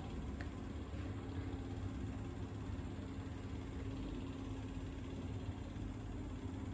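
A steady low mechanical hum with a constant tone.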